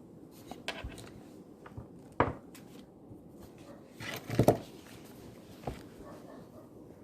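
Scattered knocks and clatters of things being handled on a study desk against a quiet room hush: a sharp knock a little over two seconds in and a louder cluster of knocks around four and a half seconds.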